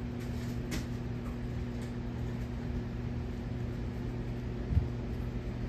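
Hampton Bay Huntington III 52-inch ceiling fan running with a steady motor hum, with a single soft low thump near the end.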